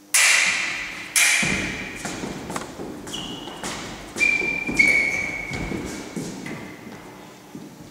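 Foil blades clashing in a series of sharp metallic strikes, each ringing briefly at a high pitch, the loudest about five seconds in, with feet thudding on a wooden floor.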